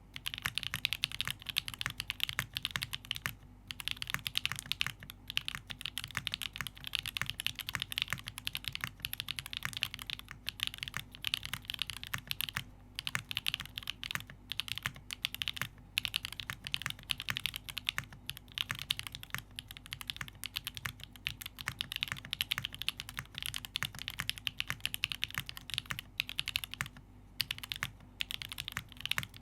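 Fast, continuous typing on a custom gasket-mount mechanical keyboard with lubed Gateron Type A switches, a carbon fibre plate and JTK keycaps, a dense run of key clicks broken by a few short pauses.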